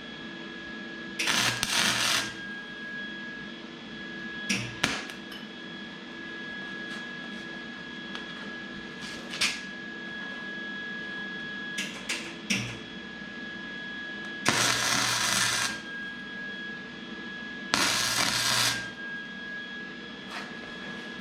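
Welding arc tacking a small steel brake-line tube onto an intake: three crackling, hissing bursts of about a second each, the first about a second in and two close together in the second half, with short sputters and clicks of brief arc strikes between them. A steady high whine runs underneath.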